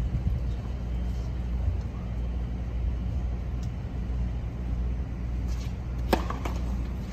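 A tennis racket striking the ball on a serve: a single sharp pop about six seconds in, over a steady low rumble of outdoor background noise.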